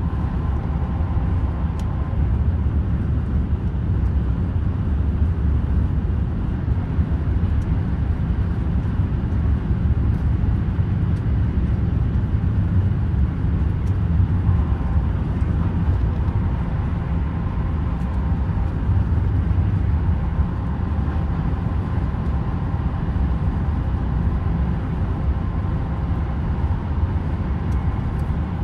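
TGV high-speed train running steadily, heard from inside the passenger coach: an even low rumble of wheels on rail with a faint whine that comes and goes.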